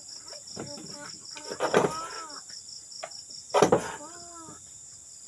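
Steady chorus of night insects, crickets trilling in a fast, even pulse, with brief voices and a sharp knock about three and a half seconds in.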